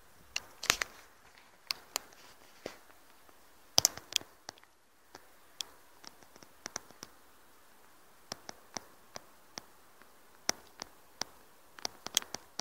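Irregular sharp clicks and taps close to the microphone, loudest under a second in and near four seconds, over a faint steady hiss.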